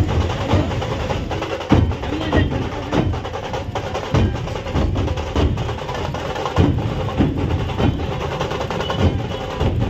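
Music with loud percussive strikes at an uneven pace, several per second.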